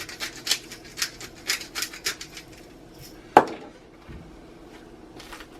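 Black pepper grinder being twisted over the food: a quick run of gritty grinding scratches, about four a second, for the first two and a half seconds. Then a single sharp knock about three and a half seconds in.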